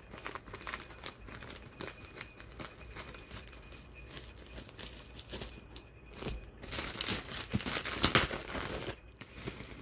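Scissors cutting through a plastic poly mailer, with soft rustling and small snips. About two-thirds in, this gives way to louder crinkling of plastic packaging and bubble wrap being pulled out and handled.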